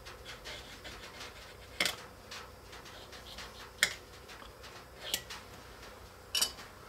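Pencil lead scratching faintly along the blade of a steel try square as a line is marked across paper-covered hardboard, with four light, sharp clicks as the square and pencil are handled, the last as the square is lifted off.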